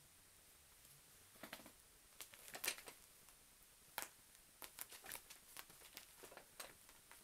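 Faint scattered clicks and rustles of a kitten's claws catching and scratching on denim and a blanket as it bats at and climbs after a pompom on a string, the sharpest clicks near the middle.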